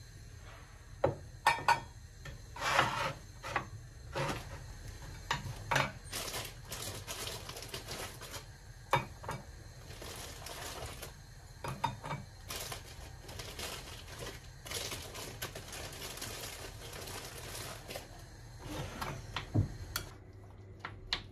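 Kitchenware being handled: a series of sharp clinks and knocks as a ceramic plate, bread and a mug are set on a wooden tray, with stretches of rustling and scraping in between, and a spoon stirring in a ceramic bowl near the end.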